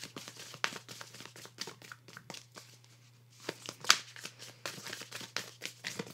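A deck of oracle cards shuffled by hand: a run of irregular soft card snaps and slides, with a louder cluster about four seconds in.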